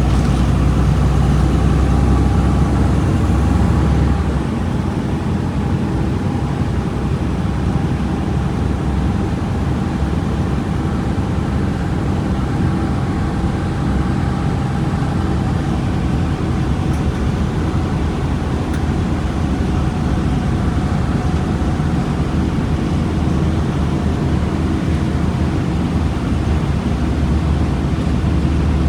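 Volkswagen Volksbus 17.230 EOD bus engine running steadily, its heavy low rumble easing about four seconds in.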